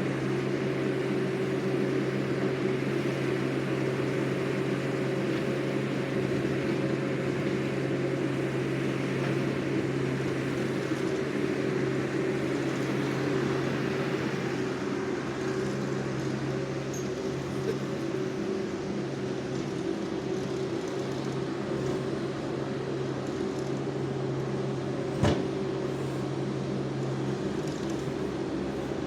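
Engine of an ASV RT-40 compact track loader running at a steady speed with an even hum, and a single sharp knock about 25 seconds in.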